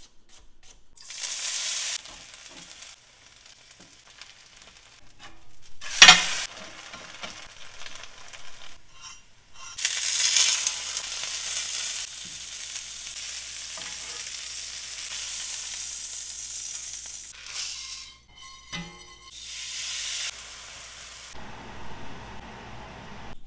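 Food sizzling in a hot frying pan in several short stretches: a ribeye steak searing, and cream poured into a peppercorn pan sauce. A sudden loud burst about six seconds in, and a few knocks a little before twenty seconds.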